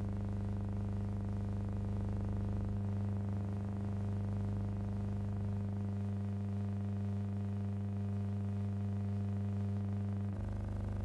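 Steady low electrical hum with a stack of even overtones, shifting slightly about three seconds in and again near the end. It is transfer noise on a silent film, not the sound of the aeroplane in the picture.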